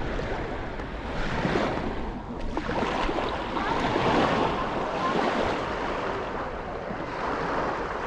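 Sea waves washing onto a sandy beach, the surf swelling louder about three seconds in, with wind on the microphone.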